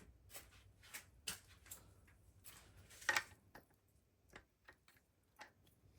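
Scattered faint metallic clicks and clinks of engine connecting-rod end caps and bearing shells being worked loose and handled, the loudest knock about three seconds in.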